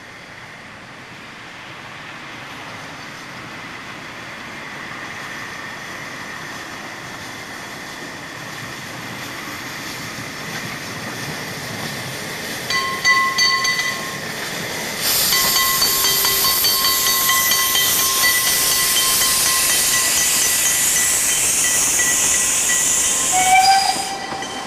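Narrow-gauge steam locomotive hauling a passenger train, growing steadily louder as it approaches and passes close by. From about fifteen seconds in a loud steam hiss covers everything until just before the end, with thin high tones ringing over the passing train.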